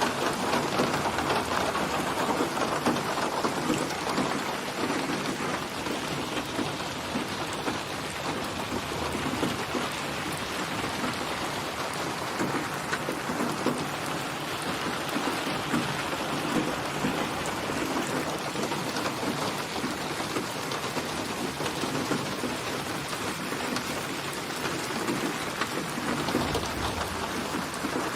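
Steady, dense rainfall, with a low rumble of thunder near the end.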